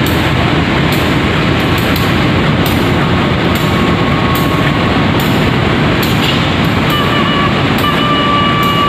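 CC 203 diesel-electric locomotive standing at the platform with its diesel engine running steadily, loud and close. A thin high tone comes in near the end.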